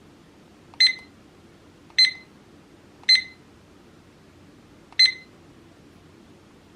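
A digital weather clock gives four short, high beeps at uneven intervals, each just after a faint button click. These are key-press beeps while the clock is being set.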